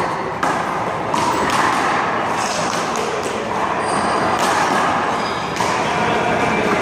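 A one-wall handball rally: the small rubber ball smacking off players' hands, the wall and the pavement, a handful of sharp hits at irregular spacing over steady background noise.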